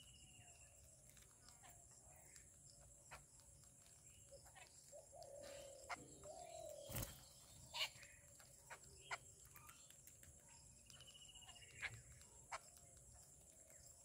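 Faint bird calls, with a short trill about half a second in and another around eleven seconds in. Scattered sharp taps come from babblers pecking at snack crumbs on a concrete ledge, the loudest a little past halfway. A steady high hiss runs beneath.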